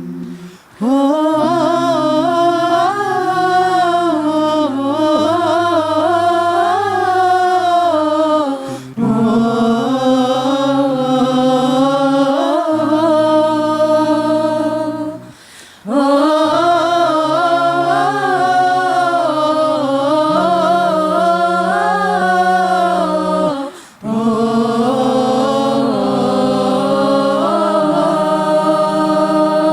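A cappella vocal group singing: a melodic lead line over lower voices holding chord notes that shift in steps. Four phrases, with brief pauses for breath between them.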